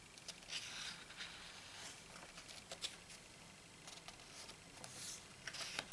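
Pages of a glossy photobook being turned and handled: a few soft paper swishes with small taps and rustles between them.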